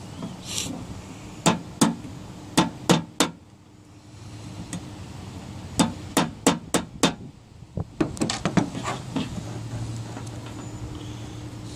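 Sharp metal-on-metal taps in three quick bursts, the last lighter: a hand tool striking an Allen wrench used as a drift to seat a part on a clutch master cylinder.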